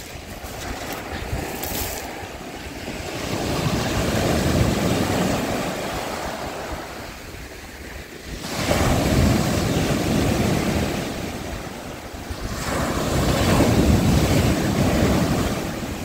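Sea surf on a slightly stormy sea: waves break and wash up the shore, swelling and falling back about every four to five seconds.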